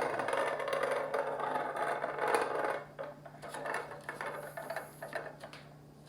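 Antique hand-crank coffee grinder being turned, its gears and burrs making a steady rattling grind for about three seconds, then slowing into a few scattered clicks.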